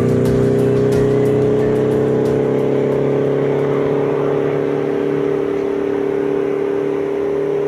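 An engine running at steady high revs, its pitch creeping up slightly, then cutting off suddenly.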